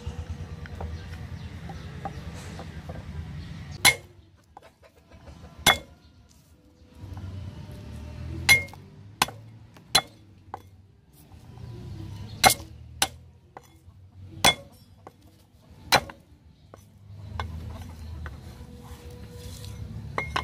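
Steel cleaver striking a wooden chopping block, cutting garlic cloves: about nine sharp knocks, unevenly spaced, some in quick pairs.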